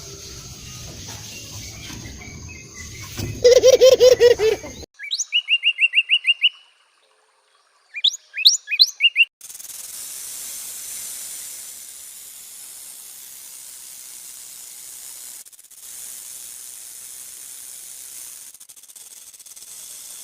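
A string of animal sound effects. First a loud, rapid pulsed call, then two runs of short, high bird chirps with quick upward sweeps. From about ten seconds in, a long steady hiss follows.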